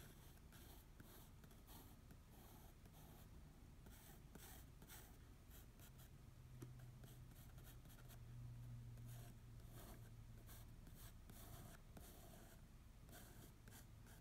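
Faint scratching of a graphite pencil on sketchbook paper, drawn in many short, quick strokes.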